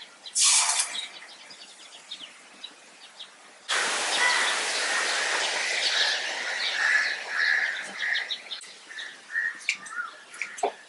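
Chopped tomatoes hitting hot oil in a small iron pan, setting off a loud sizzle about four seconds in that lasts several seconds before dying back. A short hiss comes just after the start, and small birds chirp throughout.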